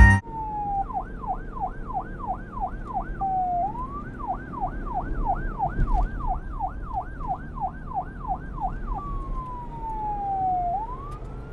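Police car siren in a fast yelp, its pitch sweeping up and down about three times a second, twice giving way to a slower falling wail before the yelp resumes.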